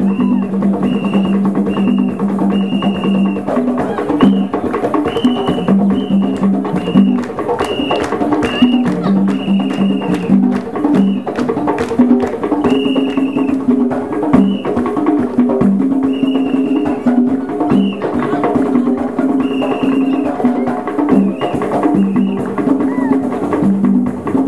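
East African drum troupe playing a fast, steady rhythm on hand drums, with a voice holding long notes over the beat.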